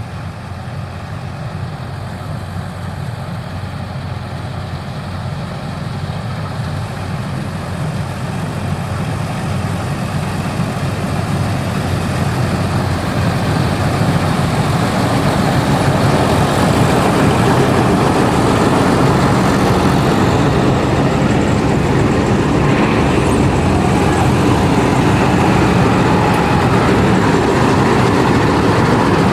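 Balkar combine harvester running, its engine growing louder over the first half and then holding steady.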